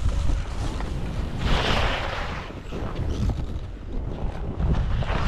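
Wind buffeting the microphone while skiing downhill, a steady low rumble, with the hiss of skis scraping snow, loudest on a turn about a second and a half in.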